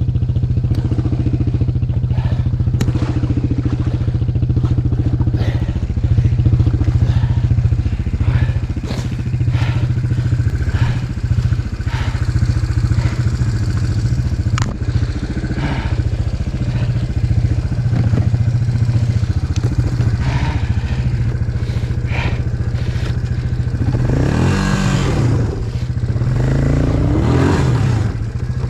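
ATV engine running hard under load as the machine is driven to get free of the mud it is stuck in, with scattered clatter and knocks. Near the end the engine revs up and down several times.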